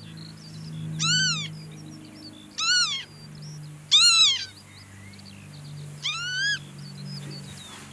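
Northern lapwing giving four 'pee-wit' calls, each about half a second long and rising then falling in pitch, the last rising only, spaced a second or two apart. Faint short chirps of other birds sound between the calls over a low steady hum.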